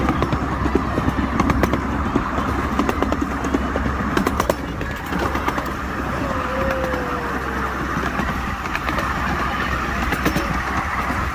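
Ride-on 7¼-inch-gauge miniature railway train running along its track, heard from an open passenger car: a steady rumble of the wheels and cars, with frequent clicks from the wheels on the rails.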